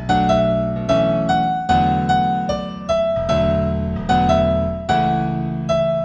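Gentle New Age keyboard piece in A major, played in a piano sound: a slow melody of single notes, struck about two to three times a second over sustained low chords.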